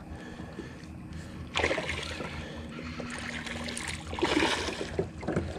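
Hooked smallmouth bass splashing at the water's surface as it is reeled up to the boat, in bursts: a sudden one about a second and a half in and more near the end.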